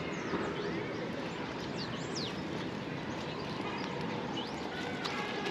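Outdoor park ambience: birds chirping and calling in short high notes, one a quick falling whistle about two seconds in, over a steady background rush.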